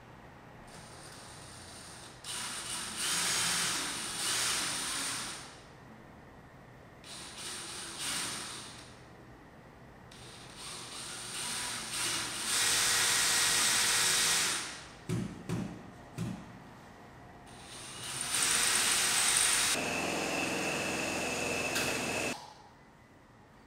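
Cordless drill running in four runs of a few seconds each, drilling into the wall to put up shelving, with a few knocks in one of the pauses.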